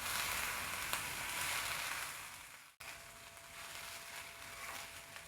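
Fried rice with vegetables and paneer sizzling in a hot pan as it is stirred, a steady frying hiss. It cuts out abruptly a little before halfway and comes back quieter.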